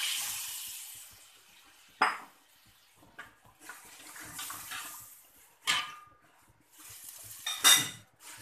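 Water pouring from a bowl into a metal wok of spice paste, a splashing rush that fades after a second or so and comes again in shorter pours, with three sharp clacks of the utensils against the wok.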